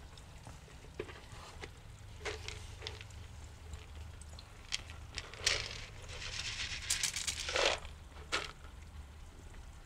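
Floating turtle food pellets scattered onto a pond's surface: a pattering rush of pellets hitting the water for about two seconds in the second half, with a few separate ticks and small splashes around it, over a steady low hum.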